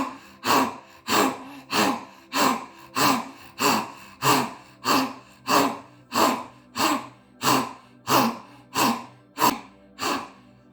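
A woman doing continuous lion-pose (simhasana) breathing: rapid forceful voiced 'haa' exhalations through a wide-open mouth with the tongue stuck out, about three every two seconds, each falling in pitch.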